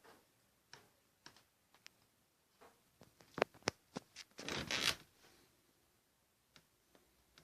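Scattered clicks and taps of handling, with a few louder clicks about three and a half seconds in and a short scraping rustle about a second later.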